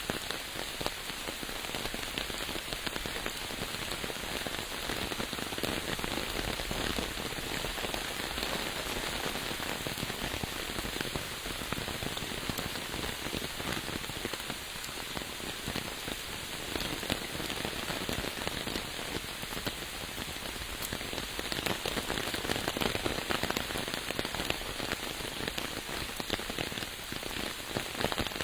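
Steady rain falling, a dense patter of many small drops that holds even throughout.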